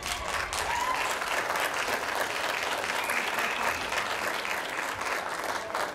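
Spectators clapping for a try in a rugby league match. The clapping starts suddenly and dies away near the end.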